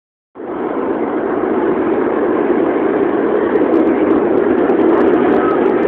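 Buenos Aires Subte Line C train running in along the platform: a loud, steady rumble of wheels on the rails.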